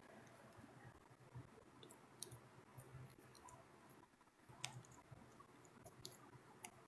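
Near silence with a few faint, sharp clicks scattered through it, the clearest about two seconds in and just before five seconds.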